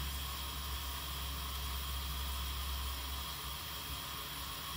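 Water at a rolling boil in a saucepan on a gas hob: a steady bubbling hiss over a low, even hum.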